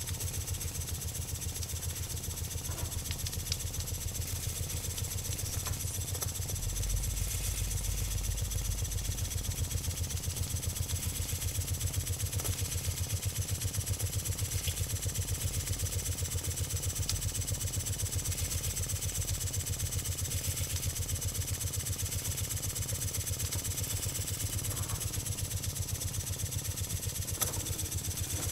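Small model guillotine-frame steam engine running steadily on steam, a fast, even beat of its strokes with a faint hiss over it. It is running quietly and smoothly.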